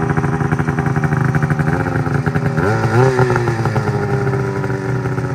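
2018 Ski-Doo 600 RS race snowmobile's two-stroke engine running steadily, with one short rev rising and falling back about halfway through.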